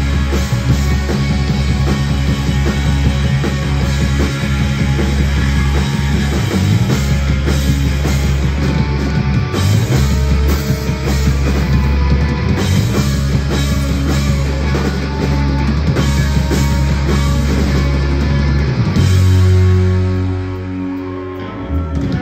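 Live rock band playing, with electric guitars, drum kit and keyboard. The drums drop out about three seconds before the end and a held final chord rings out and fades as the song ends.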